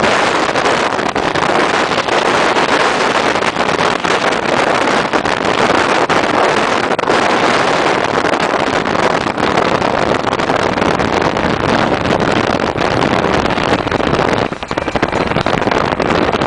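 Steady loud rush of wind and road noise from a moving car, with wind buffeting the microphone; it dips briefly near the end.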